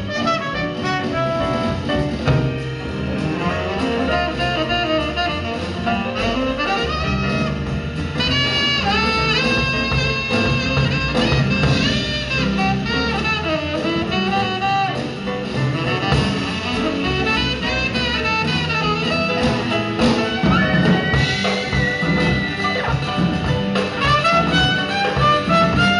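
Band playing instrumental jazz, a lead horn line winding and sliding in pitch over bass and drums.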